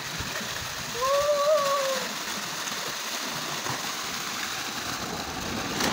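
Steady rush of water pouring from a large pipe outlet and splashing onto a man and into the water of a concrete tank. About a second in, a short drawn-out vocal cry rises and falls over the splashing.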